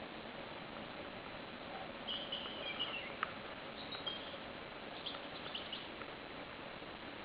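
Faint high chirps of small birds: a short run about two seconds in and a few brief calls and clicks around five seconds in, over a steady forest background hiss.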